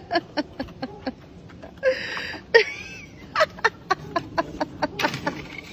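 Irregular clicks and knocks, a few a second, as a dog works a stick up towards the speaker. There is a short breathy rush about two seconds in.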